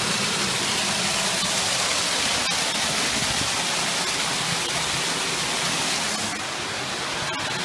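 Small garden waterfall pouring steadily, heard close up with the water falling just in front of the microphone: an even rush of falling water that eases slightly about six seconds in.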